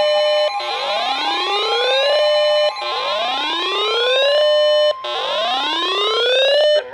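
Weather alert siren tone: a whooping sound that rises in pitch and holds, repeating about every two seconds, three times. It plays over a steady tone like the NOAA Weather Radio 1050 Hz warning alarm, which stops near the end. It is an alert ahead of a severe thunderstorm warning.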